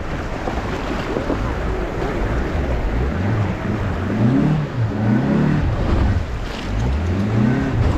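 A car's front tyre pushing through a shallow, stony river, with water rushing and splashing against the wheel and wind noise on the microphone. Low sounds rise and fall in pitch several times in the second half.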